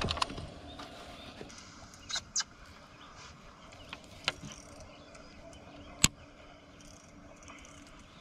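Rod-and-reel and deck handling on a fiberglass bass boat while a fish is played on a baitcasting outfit. A heavy knock at the very start is followed by a few sparse sharp clicks over a faint steady hum.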